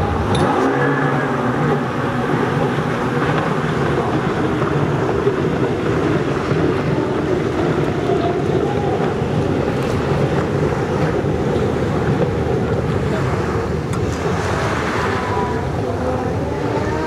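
A pack of racing jet skis at full throttle just after a beach start, a steady engine drone, with wind noise on the microphone.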